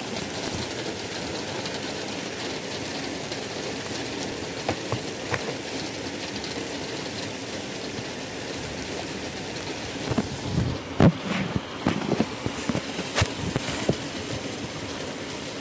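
Rain falling steadily, an even hiss. From about ten seconds in, irregular louder taps and knocks come through over it.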